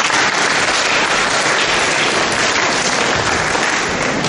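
Hall full of schoolchildren and teachers applauding, a dense steady clapping that welcomes a speaker to the microphone.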